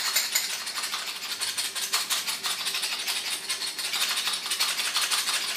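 Hand pepper mill being twisted back and forth, grinding peppercorns in a fast, continuous rattle of tiny clicks.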